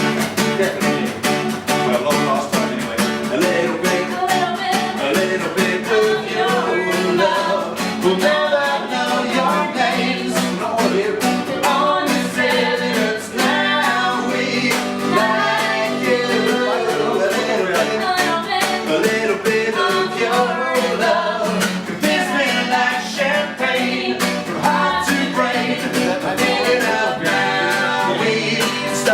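Live acoustic band music: guitar strummed in a steady rhythm with singing over it.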